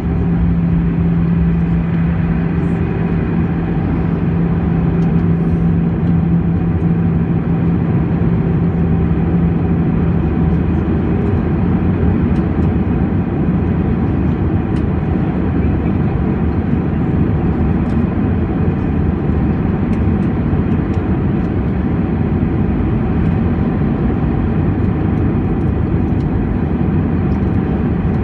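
Steady engine and airflow noise inside an Airbus A319 cabin in flight, with a low hum that fades out about eleven seconds in.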